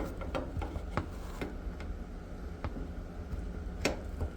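A few scattered light clicks and taps from handling the washer's door boot and parts, over a low steady hum.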